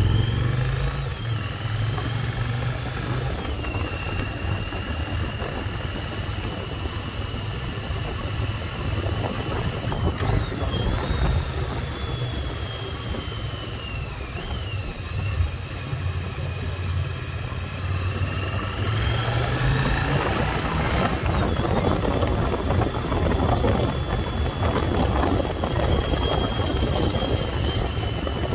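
1996 Yamaha Virago XV750's air-cooled V-twin engine running on the road, its note rising and falling as the bike speeds up and eases off. Wind rush on the microphone grows louder in the second half.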